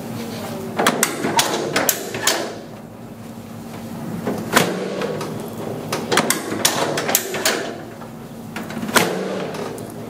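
Scattered rustles, creaks and light knocks of a body and clothing shifting on a padded treatment table during a leg stretch, over a low steady hum.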